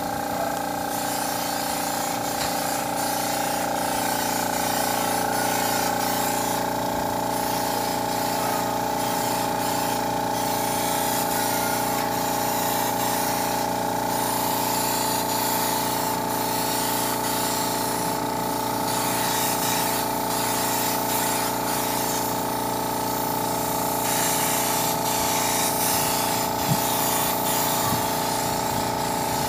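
Siphon-feed spray gun hissing as it sprays paint, over the steady hum of the air compressor that feeds it. The hiss thins out briefly several times as the trigger is let off.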